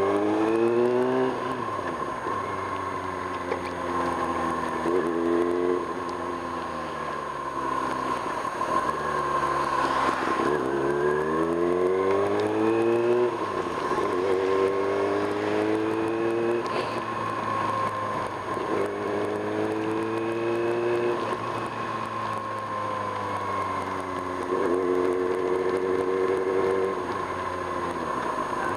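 1995 Kawasaki Ninja ZX-6R's inline-four engine under way, its pitch rising and falling again and again as the bike speeds up and slows, with a deep drop and climb about ten seconds in. A steady high-pitched whine runs under it.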